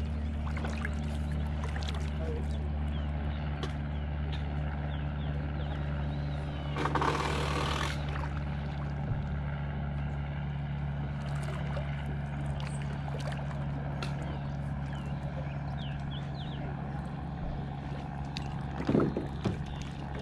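A small boat motor running at a steady pitch, a droning hum that does not change. About seven seconds in there is a brief rush of splashing water, and near the end a single knock.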